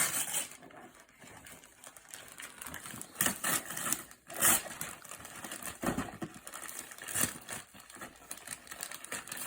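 Gift-wrapping paper being torn off a present in a series of irregular rips, with crinkling between them.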